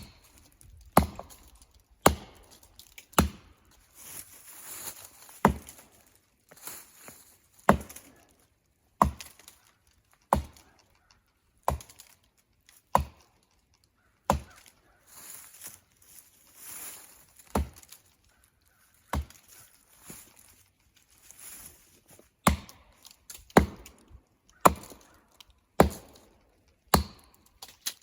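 Axe strokes chopping into tree wood, sharp single blows about one a second with a couple of short pauses, while a tree is being felled by hand.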